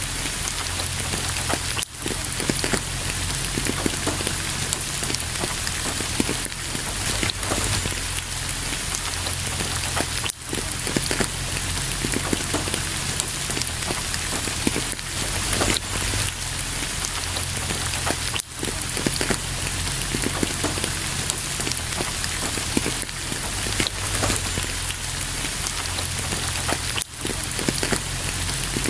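Steady heavy rain, a dense patter full of individual drop hits, with a brief dip in level about every eight seconds.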